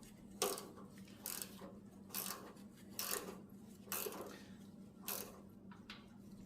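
A hand socket ratchet working a screw, with a short burst of ratcheting clicks roughly once a second.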